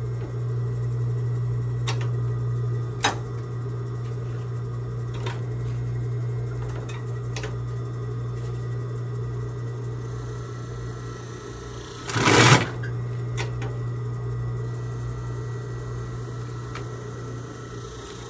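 Vintage Consew 225 industrial walking-foot sewing machine, its motor humming steadily, with scattered sharp clicks from the machine. A brief loud burst comes about twelve seconds in.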